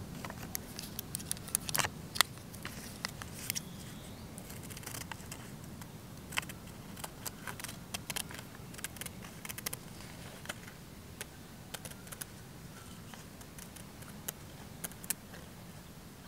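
Small scissors snipping through graph paper to cut out a paper lure template: a string of irregular sharp snips and paper crinkles over a faint steady background.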